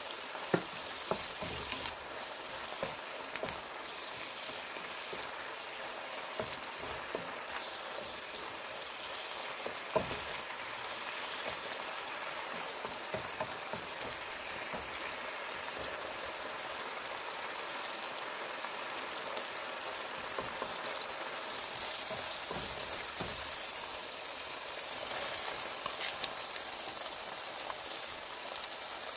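Chopped chicken and onions sizzling in butter in a hot frying pan: a steady hiss with scattered pops and spatters. The sizzle grows brighter and a little louder about two-thirds of the way through.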